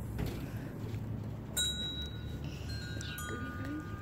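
Metal wind chimes ringing: a few separate clear notes, the first about a second and a half in, each ringing on as it fades.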